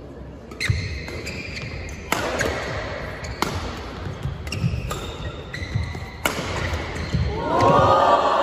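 Badminton rackets striking a shuttlecock in a fast doubles rally, five sharp smacks about a second and a half apart, with low thuds from the players' footwork in between. Near the end a loud shout rises and falls.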